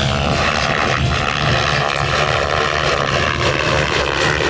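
SAB Goblin 700 electric RC helicopter flying overhead: a steady whine and whirr from its brushless motor and spinning rotor blades, its pitch drifting slightly as it moves through the air.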